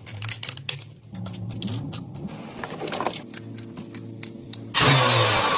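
Irregular metallic clicking and rattling over a faint low hum, then about five seconds in a sudden, much louder rushing noise takes over.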